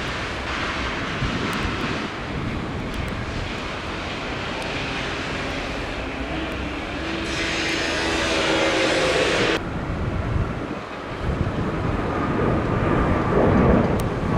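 Steady airport traffic and jet aircraft noise. About halfway through, a louder stretch with a hiss and a low whine lasts about two seconds.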